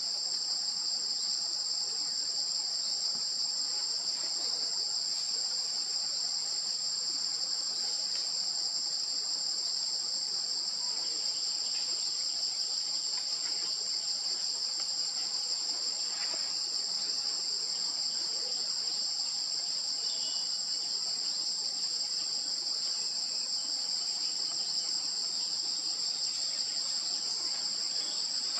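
Insects droning steadily in the forest: a continuous high-pitched buzz with a thin, steady, higher tone above it.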